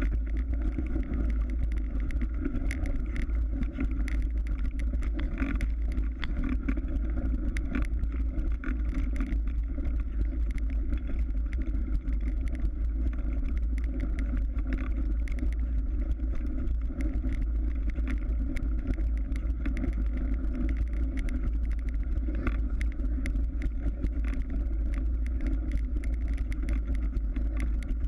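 Mountain bike ride noise on hard-packed snow and ice: a steady low rumble with tyre noise and many small clicks and rattles.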